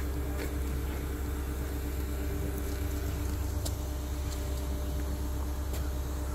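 Diesel engine of a Tadano ATF 100G-4 all-terrain crane running steadily while the crane holds a catamaran suspended on its hook: a low drone with a steady hum, and a few faint ticks.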